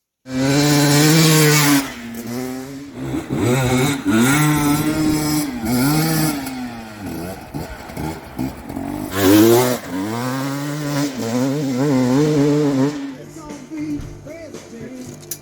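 Motorcycle engine revving up and down again and again, the pitch climbing and dropping in short swells, with a few brief breaks.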